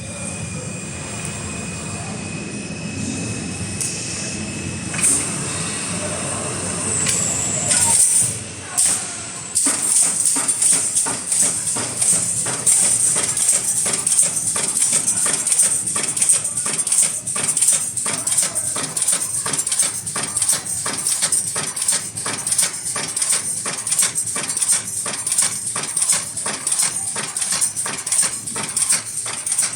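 Automatic wire mesh welding machine running: a steady mechanical hum, then from about ten seconds in a fast, even run of sharp clacks, several a second, as it works through its feeding and welding strokes.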